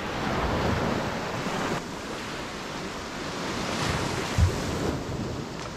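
Small waves washing onto a sandy beach, with wind buffeting the microphone. There is a short low thump about four and a half seconds in.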